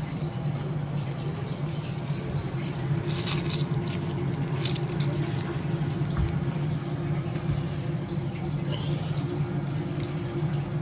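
Orange being squeezed by a gloved hand, juice dripping and splashing into a small bowl of marinade, with a few short wet squelches, over a steady low hum.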